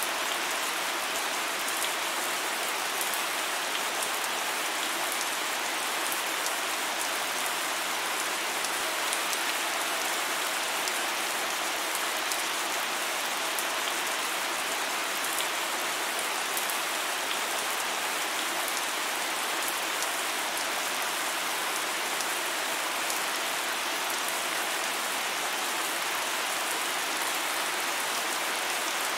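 Steady rain falling: a dense, even hiss scattered with small drop ticks.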